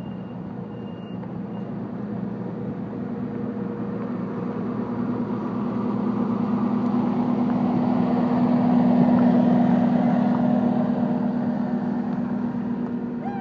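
Heavy engine of road-paving construction machinery running steadily. It grows louder to a peak about two-thirds of the way through, then eases off, as if the machine passes close by.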